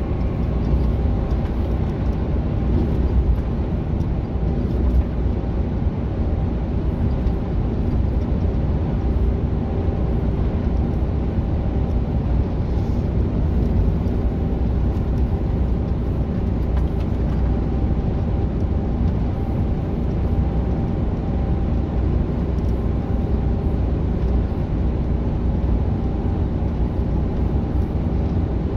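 Mercedes-Benz Actros semi-truck cruising at steady speed, heard from inside the cab: an even low drone of engine and road noise with faint steady hum tones.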